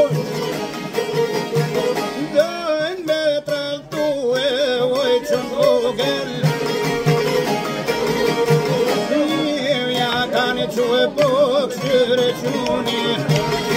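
Folk music on a long-necked fretted lute, plucked in a continuous ornamented melody, with a man's voice singing along in wavering, ornamented phrases.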